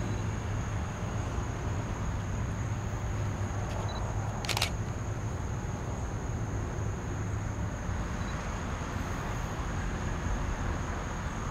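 Outdoor ambience: a steady high-pitched insect drone over a low steady rumble, with one sharp click about four and a half seconds in.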